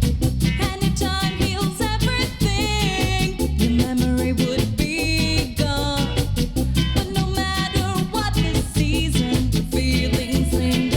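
Rocksteady reggae music played from a vinyl record, with a heavy repeating bass line under a wavering melodic lead.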